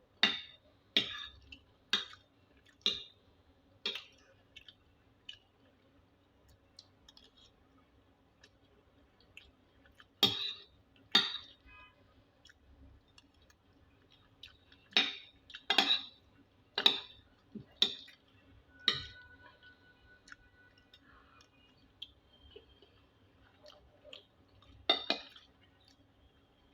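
Eating utensil clinking against a plate or bowl while a person eats rice and stew, in short runs of about one clink a second with pauses between.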